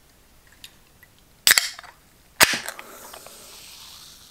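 A cold aluminium can of Reign energy drink being cracked open: two sharp snaps of the pull tab about a second apart, the second followed by a fizzing hiss of escaping carbonation that fades over about two seconds.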